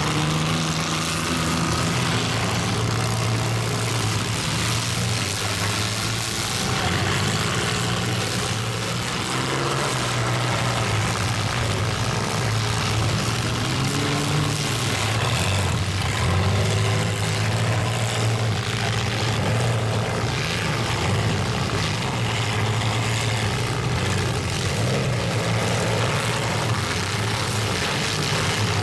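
Several demolition-derby compact cars' engines running at once, a loud steady drone whose pitch rises and falls as they rev and push through the mud, with an occasional knock of metal on metal.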